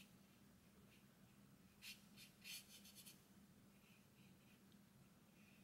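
Faint scratchy strokes of a dry-loaded watercolour brush dragged across paper, several in quick succession about two to three seconds in and a few softer ones later.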